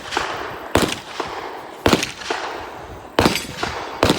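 Rifle shots fired in a rapid string at steel targets, four about a second apart. Each shot is followed a fraction of a second later by a fainter crack and a tail of echo.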